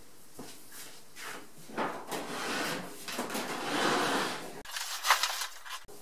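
LG clothes dryer being pushed sideways across a tile floor: irregular scraping and bumping of the cabinet and its feet, a longer scrape in the middle, then a few sharp knocks near the end.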